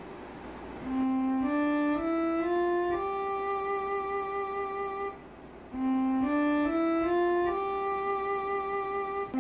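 Casio LK-520 lighted keyboard played one note at a time: a rising five-note scale, do-re-mi-fa-sol, played twice, each run ending on a held top note.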